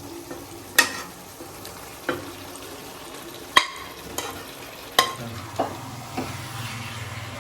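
Chicken sizzling as it is stir-fried in a pan, with a spatula knocking and scraping against the pan every second or so.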